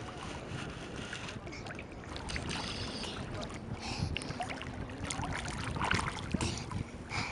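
Shallow sea water splashing irregularly as a small child paddles and kicks through it, over a steady wash of water.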